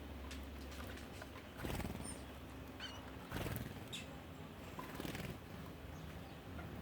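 Birds: a few faint, short, high chirps, with three brief rustling bursts in between.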